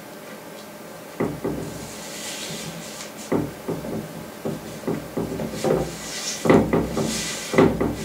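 Hands pressing and rubbing wet gummed tape down onto paper on a wooden drawing board. From about a second in come irregular wooden knocks and thumps, with brushing rubs between them.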